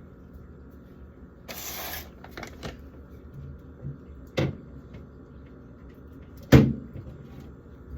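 Jars and food containers being handled and set down: a short rustle, a few light clicks, then two sharp knocks about two seconds apart, the second the loudest.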